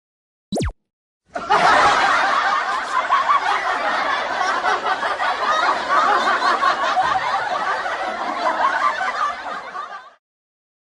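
A crowd laughing together, like a sitcom laugh track, starting just over a second in and fading out near the end. A short click comes just before it.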